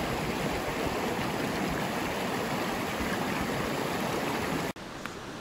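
Fast mountain stream rushing over rocks, a steady dense rush of water. It cuts off suddenly near the end, leaving a much quieter steady hiss.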